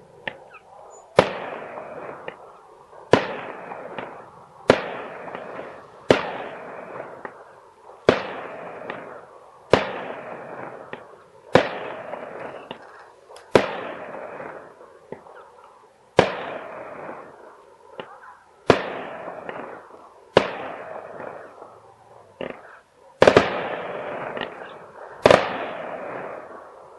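Fireworks display: about a dozen sharp bangs, roughly one every two seconds, each trailing off in a fading rumble. Two of the loudest come close together near the end.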